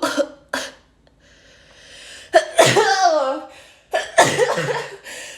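A woman sneezing hard twice, about two seconds apart, the first after a long drawn-in breath; the sneezes are set off by the nasal swab of a self-administered COVID test.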